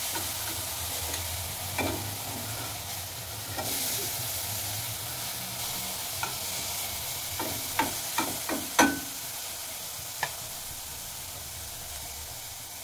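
Eggplant slices shallow-frying in a little oil in a metal pan, with a steady sizzle. A metal spoon clinks and scrapes against the pan as the slices are turned over, with a quick run of sharp clinks about eight seconds in.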